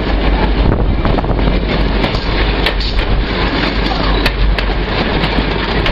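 Steady noise of a moving passenger train heard from an open-air car, with wind buffeting the microphone and scattered sharp clicks.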